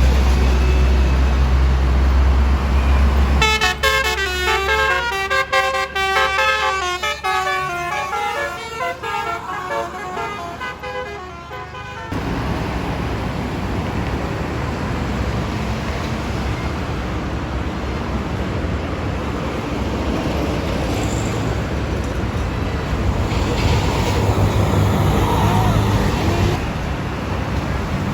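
A bus engine runs with a heavy low rumble, then a few seconds in a basuri musical air horn ("telolet") plays a quick tune of changing notes for about eight seconds and stops suddenly. Steady road traffic and engine noise follow.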